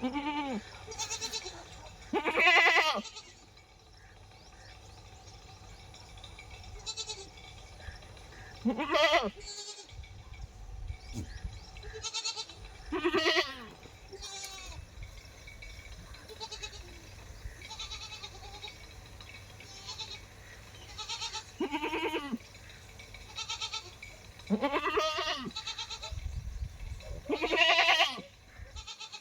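A nanny goat and her kid bleating back and forth: about seven loud, wavering bleats a few seconds apart, with fainter calls in between.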